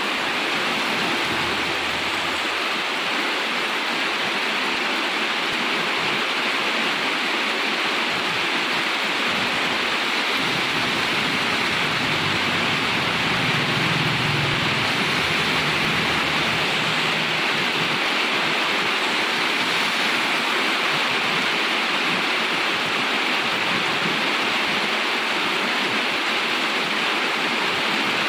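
Steady hiss of rain, with the low rumble of motor vehicles passing on a highway coming and going, most noticeable about halfway through.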